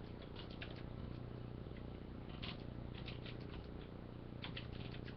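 Faint computer keyboard typing: irregular light key clicks, some in quick runs, over a low steady hum.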